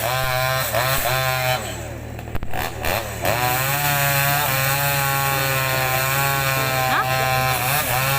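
Petrol chainsaw running at high revs, its pitch wavering as it works. The engine dips about two seconds in, then picks back up and holds high.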